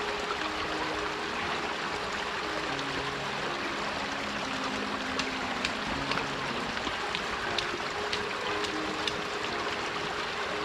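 Water running steadily along a roadside drain channel, a constant trickling flow, with a few faint clicks in the second half.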